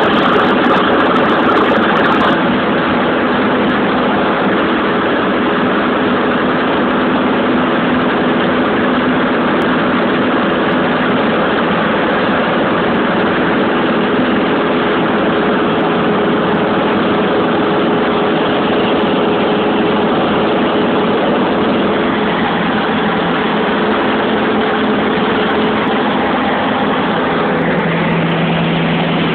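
Light aircraft's engine and propeller droning steadily, heard from inside the cabin in flight; the engine note shifts near the end.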